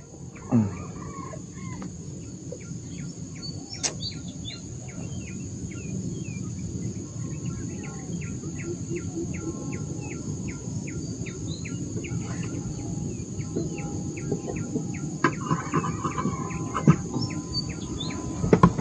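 Birds calling in the open air, with a rapid, even ticking call about three times a second through the middle and a drawn-out call near the end.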